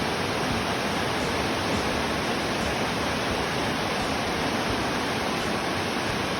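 Heavy rain falling on the barn, an even, unbroken hiss.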